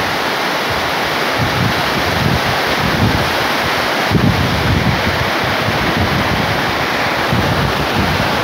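Heavy rain pouring steadily onto tea bushes and trees. From about a second in, wind gusts buffet the microphone with low, irregular rumbles.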